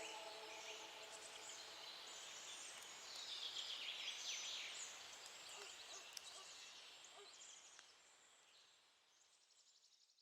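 Faint birdsong, many short chirps and trills, busiest in the first half and fading out gradually toward the end.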